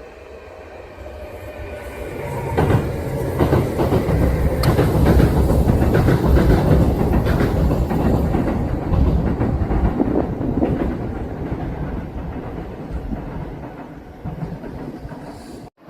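Kintetsu electric train passing at speed, its wheels clacking over the rail joints. It swells about a second and a half in, is loudest in the middle and fades toward the end.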